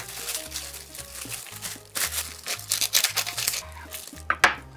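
Translucent sandwich wrap crinkling as it is folded and pressed tightly around a thick sandwich, over background music. Near the end there is one short, loud rasp as a knife cuts into the wrapped sandwich.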